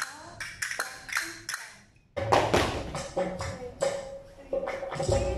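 Several castanets clicking in uneven rattles for about two seconds, then flamenco music starts suddenly, with sustained tones and sharp percussive beats.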